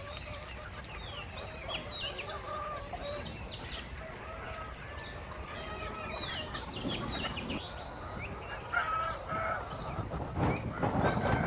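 A flock of free-range chickens clucking and calling, with many short high calls throughout and a few knocks near the end.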